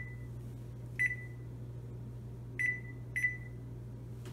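Jenn-Air oven's electronic control panel beeping as its keys are pressed to set it to preheat: four short high beeps, the last two close together, over a steady low hum.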